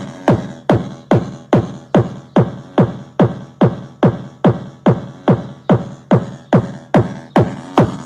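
Car sound system with a 12-inch Eros 400 W woofer playing a DJ promo track: a sharp electronic hit that sweeps down in pitch, repeating a little over twice a second.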